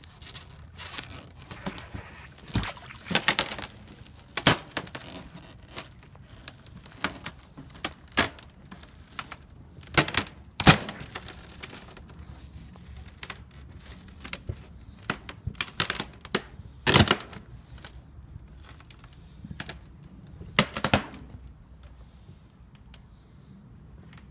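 Ice breaking: irregular sharp cracks and snaps, some single and some in quick crackling clusters, the loudest about ten and seventeen seconds in.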